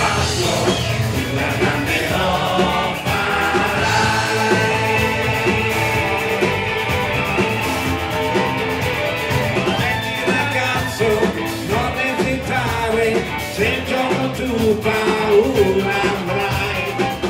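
Live rock band with electric bass, electric guitar and keyboard playing an Italian TV cartoon theme song, with a male lead vocal and a female singer; the singing stands out more in the second half.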